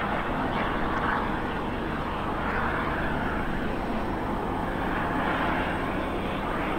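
Diesel-electric locomotives of a heavy loaded coal train working hard up a steep grade, heard as a steady drone that swells and eases slightly.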